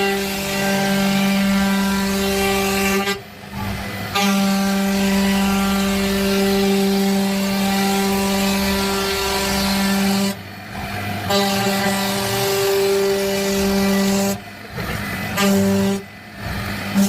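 CNC router spindle running and cutting wood: a steady high hum over a rough cutting hiss, dropping away briefly about four times.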